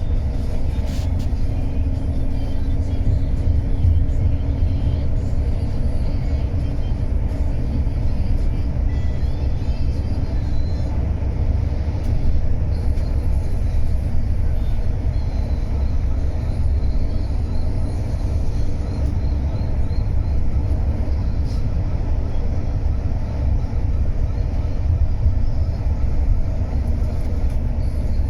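Steady low rumble of a coach bus on the move, heard from inside the cabin: engine and road noise with no break or change.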